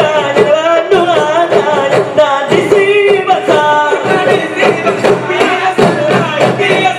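Rapa'i Geleng: a group of men beating large rapa'i frame drums in a steady, fast rhythm while singing.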